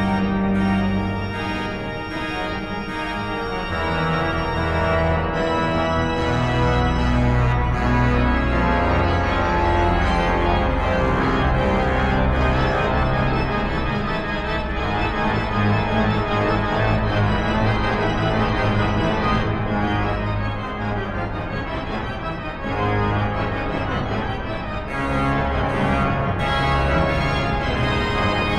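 Cavaillé-Coll pipe organ playing a fast virtuoso étude in octaves at full volume, with dense sustained chords over strong, shifting bass notes.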